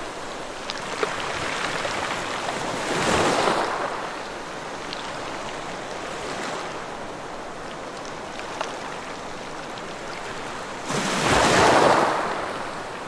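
Ocean waves washing onto a beach: a steady surf hiss with a wave breaking about three seconds in and a louder one near the end.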